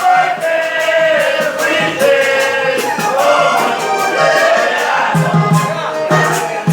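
Latin American song: a voice singing a melody over a steady, evenly spaced percussion beat.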